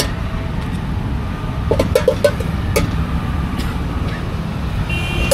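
Steady road-traffic rumble, with a few light clinks of a steel spoon against a steel food pan as boiled corn is scooped into a paper cup. A short high tone sounds near the end.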